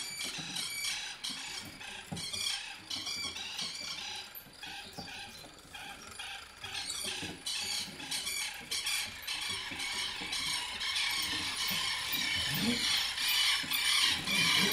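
A round object whirled by hand, clicking and rattling fast and densely, growing louder over the last few seconds.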